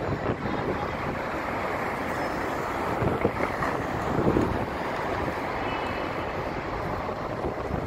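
City street traffic with wind buffeting the microphone: a bus driving past, and a car passing close around the middle.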